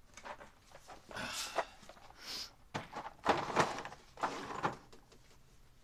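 Handling noise close to the microphone: irregular rustling and scraping with a few knocks, in several short bursts.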